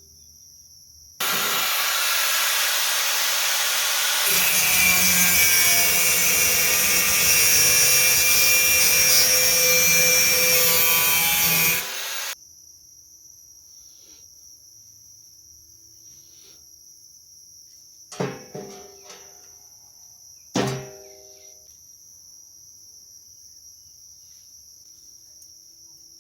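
A power tool working steel with a loud, harsh grinding noise for about eleven seconds, then stopping abruptly. A few seconds later come two ringing metal clanks.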